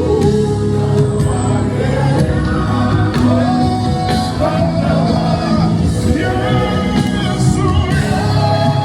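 Live gospel worship music: a singer holding long notes over a full band with a steady beat, echoing in a large hall.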